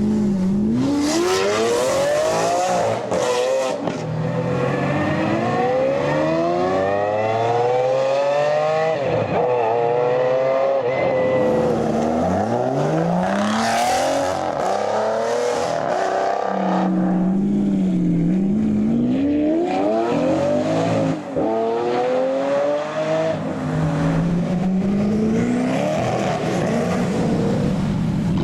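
Supercar engines accelerating hard, the pitch climbing and dropping back at each gear change, in several runs one after another.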